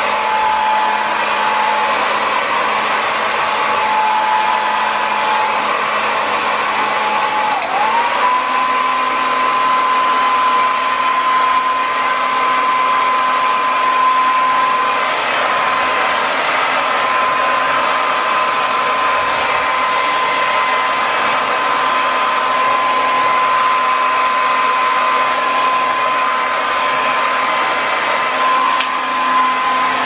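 Handheld 1875-watt hair dryer blowing steadily: a hiss of air with a motor whine. About eight seconds in, the whine dips briefly and then settles at a higher pitch.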